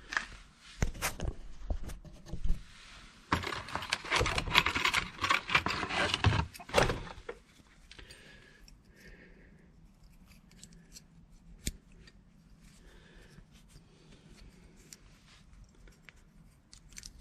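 Metal brake-pad spring clips and new disc brake pads being handled: light metallic clinking and scraping as the clips are slid onto the pad ends. The clatter is busy for about the first seven seconds, then thins to faint scattered clicks, with one sharper click about halfway through.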